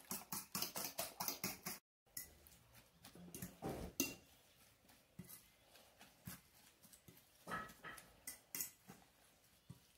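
A fork beating eggs in a metal bowl, clinking against the bowl about five times a second for the first two seconds. After a short break, scattered clinks and scrapes as the fork stirs chopped capiçoba leaves into the egg, the loudest about four seconds in.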